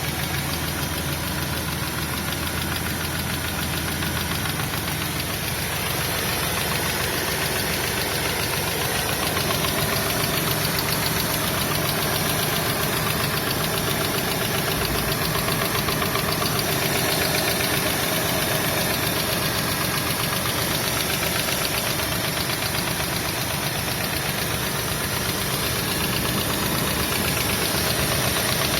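An engine running steadily with a rapid, repeating knock, a knock whose cause is not known.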